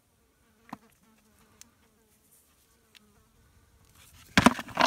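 A flying insect buzzing around the microphone: a faint steady drone, with a few light clicks, then a much louder, rough buzz from about four and a half seconds in as it comes right up to the mic.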